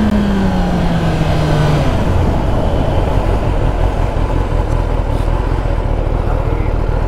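Sportbike engine note falling as the bike slows from speed, with heavy wind rumble on the microphone; after about two seconds the engine note drops out of the rumble as the bike rolls to a near stop.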